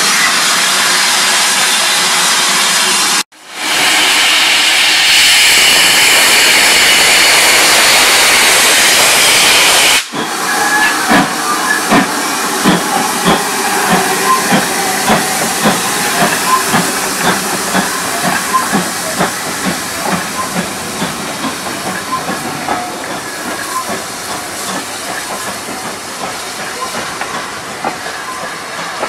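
GWR 5600 class 0-6-2 tank steam locomotive No. 5619 hissing loudly with steam up. About ten seconds in it gives way to the locomotive pulling away with regular exhaust chuffs that slowly fade as the train moves off.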